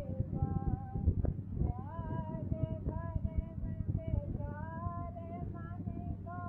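A woman's voice singing a slow devotional hymn in long held notes that glide between pitches. Underneath run a steady low hum and crackle.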